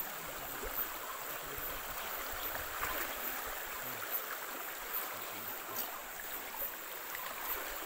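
Shallow stream running over a rocky bed through riffles: a steady rushing babble of water.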